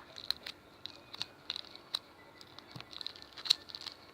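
Faint, irregular light clicks and taps of a small plastic foam-slime container being handled.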